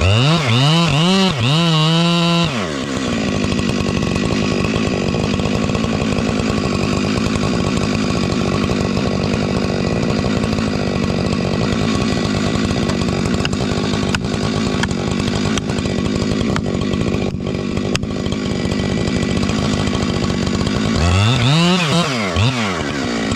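Chainsaw engine revving up and down, then running steadily at high speed for a long stretch, revving again near the end.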